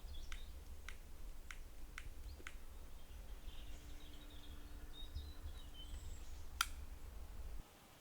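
Outdoor ambience: a low rumble of wind on the microphone with faint bird chirps, broken by sharp clicks about every half second in the first few seconds and one louder click later. The rumble cuts off suddenly near the end.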